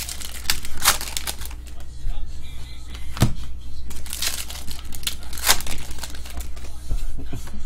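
Foil trading-card pack wrapper being torn open and crinkled by hand, in irregular crackling rustles, the sharpest about three seconds in and again about five and a half seconds in.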